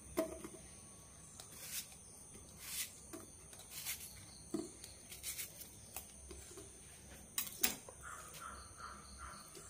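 Faint, scattered taps and clicks of a knife cutting a small onion held in the hand, the pieces dropping into a stainless-steel mixer jar.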